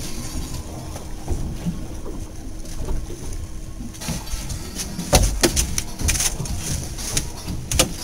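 Low, steady rumble of wind and the boat, with a faint steady hum underneath. From about halfway in there is a run of sharp, irregular clicks and knocks of tackle and handling on the deck.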